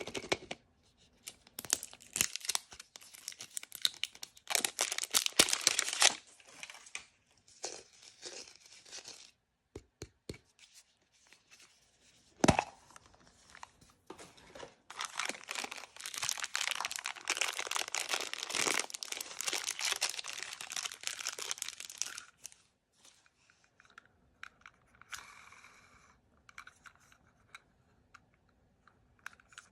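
Plastic blind-bag packaging being torn open and crinkled by hand, in bursts of tearing and rustling with a single sharp snap about twelve seconds in. A long unbroken stretch of crinkling follows in the middle, then fainter, sparser rustles.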